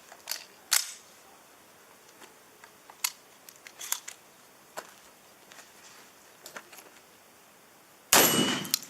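Several faint, sharp clicks, then a single loud shotgun blast about eight seconds in that rings out for most of a second.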